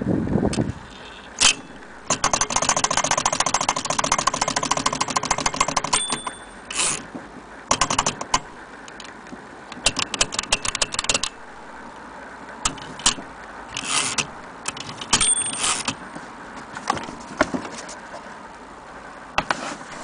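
Bar-Let portable typewriter mechanism clicking and clacking as it is worked: a fast run of metal clicks, later bursts and single clacks, and a short bell-like ding twice, typical of the carriage margin bell.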